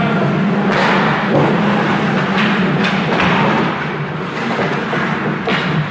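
Ice hockey game sounds: skate blades scraping the ice and dull thuds of sticks, puck and equipment, coming every second or so over a steady low hum.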